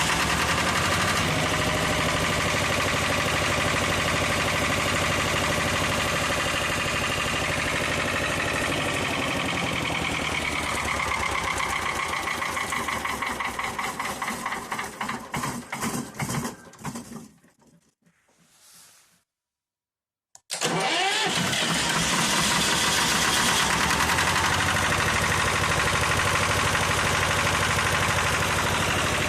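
1988 Lister TS2 two-cylinder air-cooled diesel running, then shut off: its firing strokes slow into separate thuds and die away about a quarter of a minute in. After about three seconds of silence it starts again, catching at once, and runs steadily.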